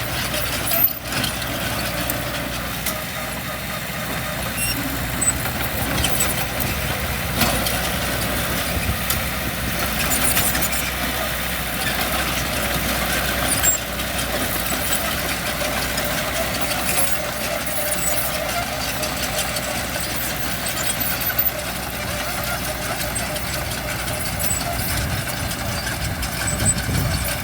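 Diesel engines of heavy construction machinery, dump trucks and a bulldozer, running steadily, with a few brief knocks.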